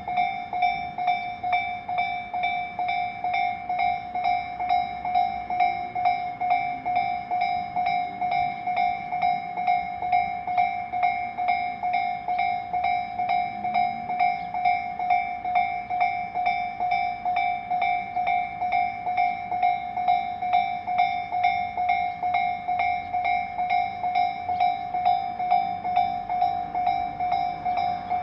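A Japanese railway level-crossing warning bell ringing: a steady electronic ding repeating about two and a half times a second, the alarm that sounds while a train approaches and passes the crossing.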